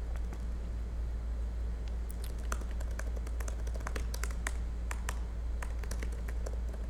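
Typing on a computer keyboard: a run of quick, irregular key clicks over a steady low hum.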